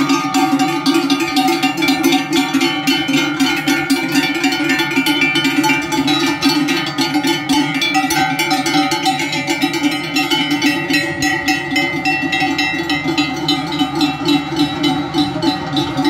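Many large cowbells clanging continuously and overlapping, swung by the steps of cows walking past close by.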